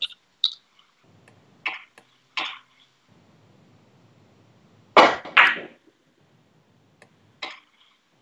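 Carom billiard balls clicking as a three-cushion shot is played: a string of short, sharp clicks at uneven intervals, the loudest two close together about five seconds in.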